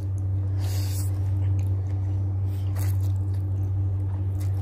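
Noodles slurped and chewed, with a hissy slurp about a second in and a shorter one near three seconds. A steady low hum runs underneath throughout.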